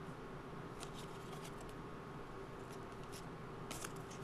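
Faint scattered clicks and light rustling of trading cards being handled and sorted, over a steady low room hum.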